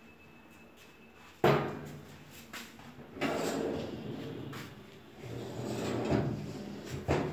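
A steel kitchen cabinet door shuts with a bang, then a drawer holding a stainless-steel wire basket slides out and back on its runners, the basket rattling, and the drawer shuts with a sharp knock near the end.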